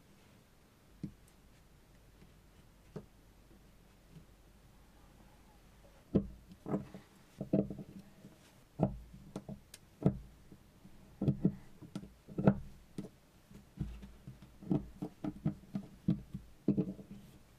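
A series of irregular knocks and clicks of hard objects: a few single ones at first, then a dense, uneven run of them from about six seconds in.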